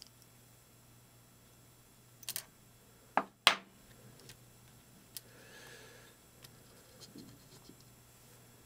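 A handful of sharp little metallic clicks and taps, the loudest about three and a half seconds in, as tiny 10BA screws and a small hand-made screw driver are worked against the model locomotive's metal smokebox front. A faint steady hum sits underneath.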